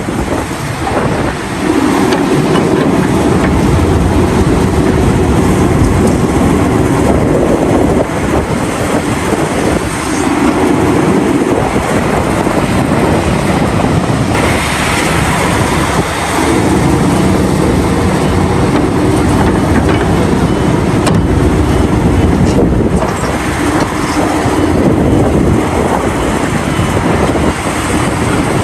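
Diesel engines of heavy mining machinery (hydraulic mining excavators loading haul trucks) running under load, the engine note swelling for several seconds at a time and easing off between, several times over.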